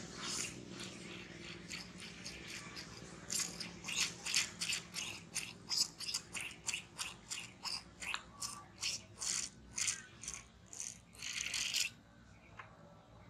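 Rhythmic sucking and slurping of milk being drunk, about three sucks a second, starting a few seconds in and stopping suddenly near the end.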